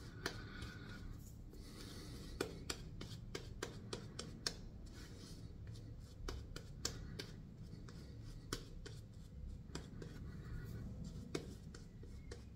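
Yaqi Timberwolf synthetic shaving brush working shaving-soap lather over a lathered face: faint soft rubbing, scratching and swishing, with many small irregular clicks.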